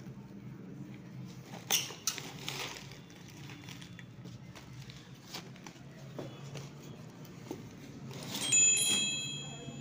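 Plastic wrap crinkling and scraping with scattered clicks as a box cutter opens the packaging, then a sharp squeak with a few ringing high tones near the end as the styrofoam box is rubbed.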